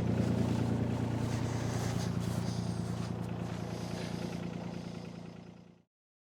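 Mini excavator's diesel engine running at a steady idle, a low even hum that fades out shortly before the end.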